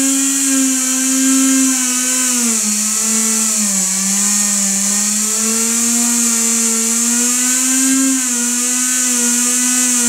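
A small reed-switched pulse motor with a magnet rotor (Mini window motor) whining at high speed, with a steady hiss above it. Its pitch sags from about two and a half seconds in, recovers around five seconds, and sags again near the end as the rotor is loaded by hand to test its torque.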